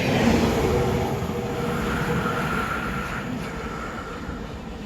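Class 700 electric multiple unit running along the line, its rumble slowly fading, with a faint steady whine from its traction equipment.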